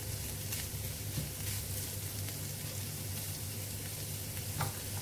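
Minced beef with onions and spices sizzling steadily in a nonstick frying pan, stirred with a wooden spoon that now and then gives a light scrape against the pan.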